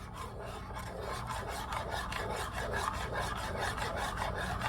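Fluffy slime of glue and shaving cream being stirred in a bowl: a steady, rhythmic rubbing and scraping, about six strokes a second.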